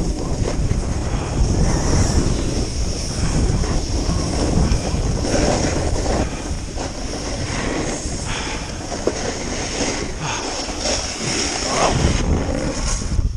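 Snowboard sliding down a groomed run: a continuous scraping rumble of the board's base and edges on packed snow, swelling and easing through the turns, with wind rushing over the microphone.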